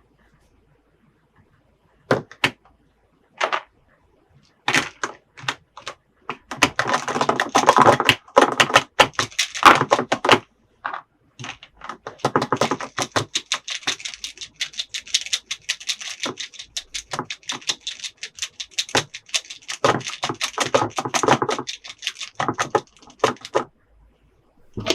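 Small plastic toy pieces being handled, giving a long run of quick clicks and clatter, with two longer stretches of rustling.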